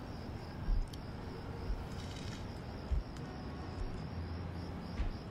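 Night ambience of crickets chirping steadily over a low rumble, with a few dull low thumps about a second in, at three seconds and at five seconds.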